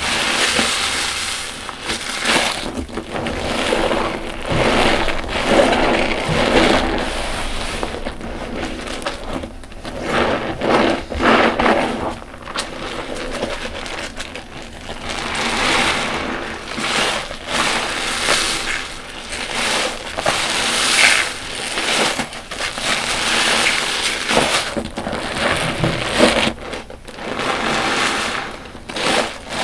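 Car wash sponge soaked in soapy water squeezed by hand over and over: wet squelching of suds and water, swelling and easing every second or two.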